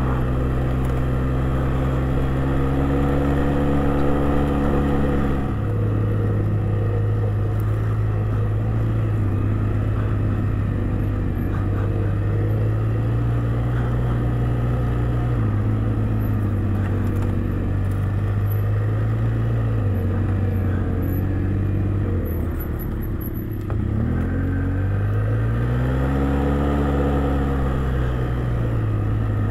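Jinling 250 ATV engine running under way, its note rising and falling with the throttle. The engine eases off briefly past the two-thirds mark, then swells and falls again near the end.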